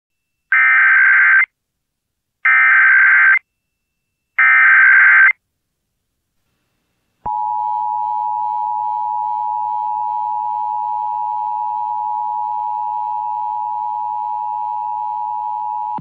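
Emergency Alert System tones opening an Amber Alert broadcast: three one-second bursts of the digital SAME header data, then, after a short gap, the steady two-tone EAS attention signal (853 and 960 Hz together), starting about seven seconds in and holding.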